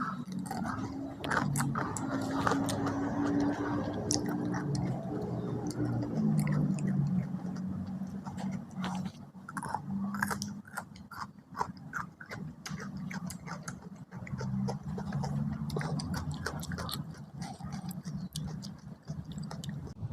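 A person chewing food close to the microphone, with many short wet mouth clicks throughout. A low droning tone runs underneath, shifting in pitch now and then.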